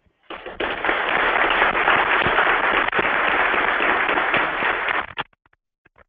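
Audience applauding, a dense crackle of many hands clapping that swells up within the first second and cuts off abruptly about five seconds in.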